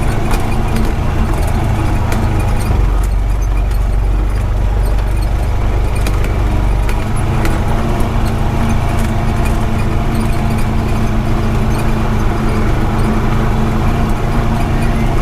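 Honda Pioneer 520 side-by-side driving along with its engine running steadily, with scattered clicks and rattles from the ride.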